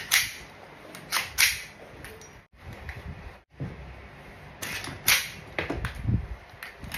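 AK47 rifle being cocked by hand, its bolt carrier racked back and snapping forward: a series of sharp metal clacks, three near the start and a run of four more about two-thirds of the way in, with quieter handling noise between.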